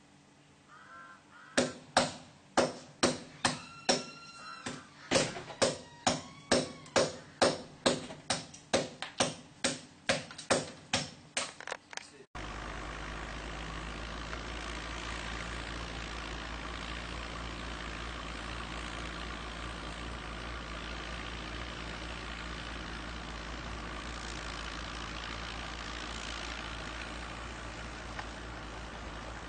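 Sharp knocks repeating about twice a second for some ten seconds, then a sudden cut to a steady rumbling noise with a low hum.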